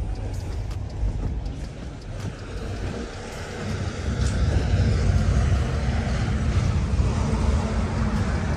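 Low outdoor rumble with wind noise on the microphone, louder from about four seconds in.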